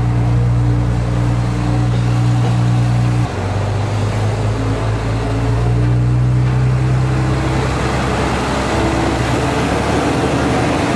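Diesel railcar engine running with a steady low hum. After a sudden cut about three seconds in, a Wakasa Railway diesel railcar's engine works harder as it pulls out of the platform, and its hum gives way to rolling noise near the end.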